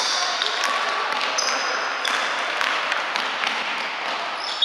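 Indoor basketball game noise: a ball bouncing on the court and sneakers squeaking, with the echoing haze of a gym hall.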